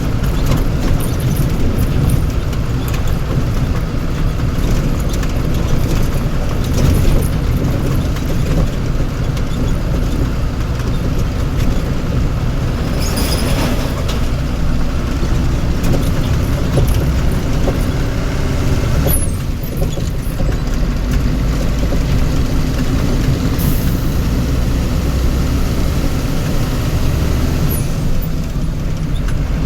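Steady low rumble of a vehicle engine and road noise while driving, with a brief hiss about halfway through and another near the end.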